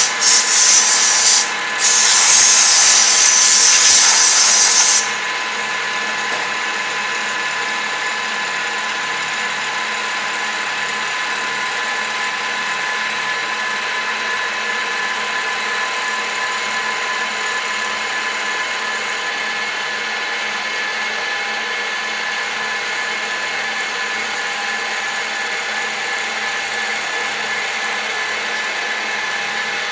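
TOS FN20 milling machine dry-cutting aluminium plate with an end mill, the spindle and cut making a steady whine with several even tones. Over the first five seconds a loud hiss sounds over it, with a short break about two seconds in.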